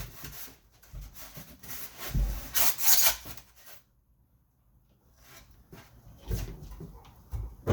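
Quick repeated rubbing strokes on a hard surface, stopping about three and a half seconds in; after a second's pause come softer, scattered scrapes and knocks.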